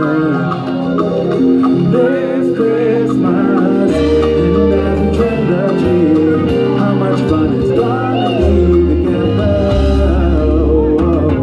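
Live band music with a singer: a bending melody over sustained bass notes and light percussion.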